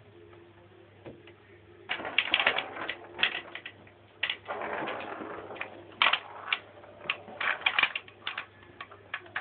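Foosball table rods and plastic player figures rattling and clacking as a kitten walks over them, in irregular bursts of sharp clicks starting about two seconds in.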